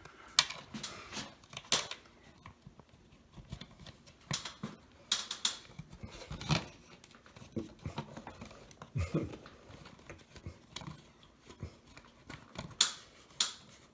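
Plastic smoke-alarm mounting base and its screws being worked into line on the ceiling box: scattered, irregular small clicks and knocks with quiet gaps between.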